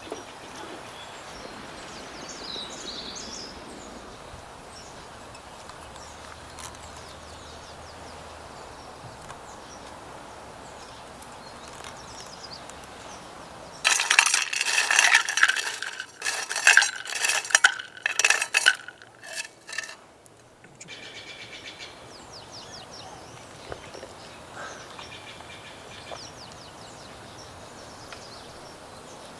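Dishes and cutlery clinking and clattering for several seconds about halfway through, over steady outdoor ambience with faint bird chirps.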